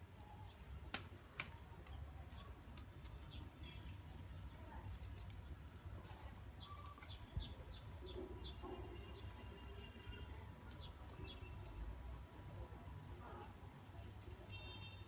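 Faint birds chirping in short high calls, mostly in the middle and again near the end, over a steady low hum. Scattered light taps and rustles come from kittens pouncing at a sprig of leaves on cloth.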